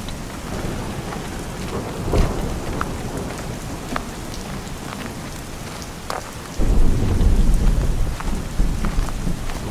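Rain falling steadily, with scattered sharp drips and taps. About two-thirds of the way through, a deep roll of thunder starts suddenly and rumbles on, the loudest sound.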